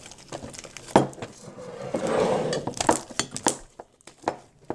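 Hands squeezing and pulling a large mass of sticky homemade slime, with sharp snaps and clicks, the loudest about a second in, and a softer squishing stretch in the middle.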